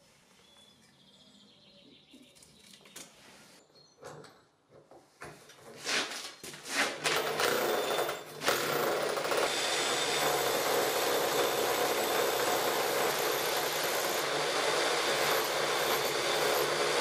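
A Bosch rotary hammer driving a 65 mm core drill bit into a cement screed floor. After a few seconds of faint clicks and some short bursts, it starts about halfway through and runs steadily.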